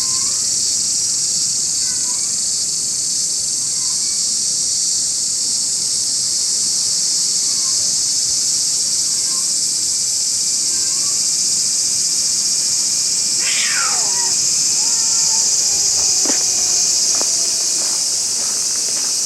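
A steady, high-pitched insect chorus. From about two-thirds of the way in, cats give long, drawn-out yowls that slowly fall in pitch: the threat calls of angry cats squaring off.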